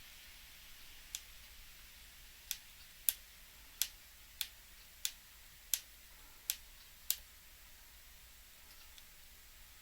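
Shimano BL-M9020 hydraulic brake lever clicking as it is worked: nine sharp, light clicks about two-thirds of a second apart, then they stop about seven seconds in. This is the lever's known clicking-noise fault.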